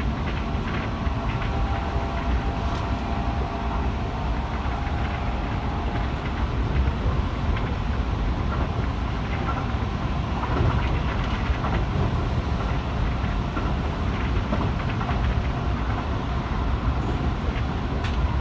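Keihan 3000 series electric train running at speed, heard from inside the car: a steady rumble of wheels on the rails, with a higher whine in the first few seconds.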